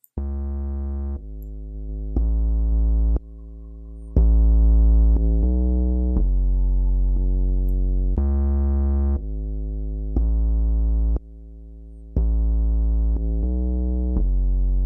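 Bass sound playing a run of held notes at different pitches, each about a second long, through a compressor with its make-up gain raised. The loud and quiet parts are evened out and the overall level is lifted, though two notes are still clearly quieter than the rest.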